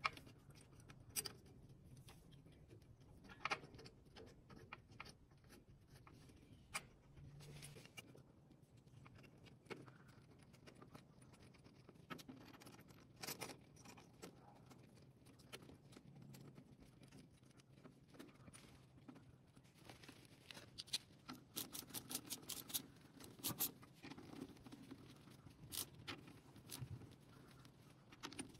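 Scattered small metallic clicks and taps of hands and tools working the oil pump cover and its bolts into place, with a quick run of ratchet clicks about three-quarters of the way in as a bolt is run down with a socket and extension.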